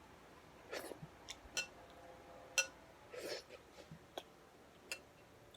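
Faint eating sounds from finishing a bowl of pho: a few short sips or slurps and light scattered clicks.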